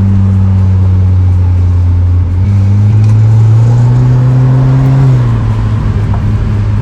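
Car engine heard from inside the moving car, holding a steady drone, then pulling up in pitch as the car accelerates for about three seconds before dropping back.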